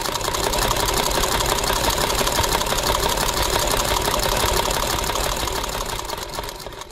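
Singer semi-industrial sewing machine running steadily, its motor and needle mechanism making a fast, even stitching rhythm that tapers off near the end.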